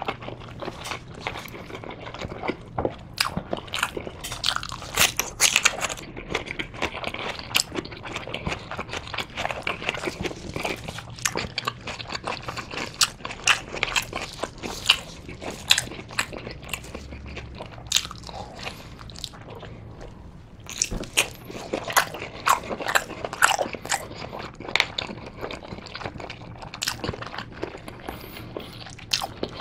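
A person biting and chewing Korean blood sausage (soondae) close to the microphone: a steady run of wet chewing clicks and smacks.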